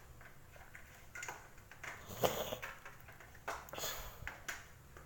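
A few scattered light clicks and knocks from hands handling the water purifier's plastic parts and its power cable and plug.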